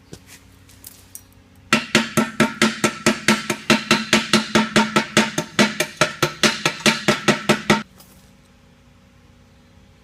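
Chipping hammer rapping slag off a fresh 6011 stick weld, sharp ringing metal strikes about five a second for some six seconds that stop abruptly, with a faint steady hum underneath.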